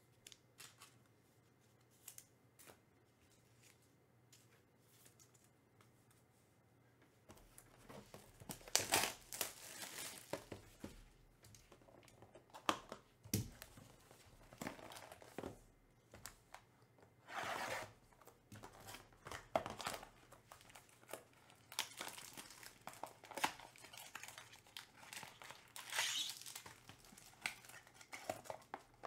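A sealed trading-card box being opened by hand: faint clicks of cards being handled, then from about seven seconds in, repeated tearing and crinkling of wrapping and rustling of cardboard as the box is unsealed and a pack is taken out.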